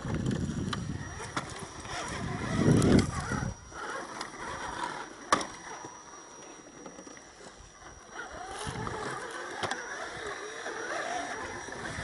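RC scale crawler with a Gelande II chassis, its small electric motor and gearbox whining and rising and falling in pitch as it picks its way over rocks. There is a low rumble in the first few seconds and a sharp click about five seconds in.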